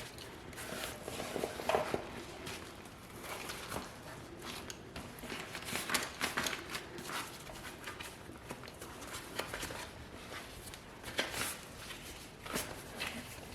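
Dry bag with towels, soapy water and trapped air in it, rustling and crinkling irregularly as it is squeezed to press the air out and its top is rolled down.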